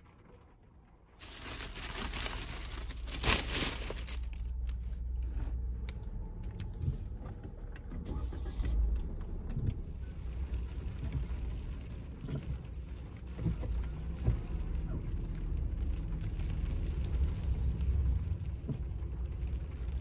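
Rain and strong wind on a small car heard from inside it: a steady low rumble and hiss with scattered ticks, starting suddenly about a second in.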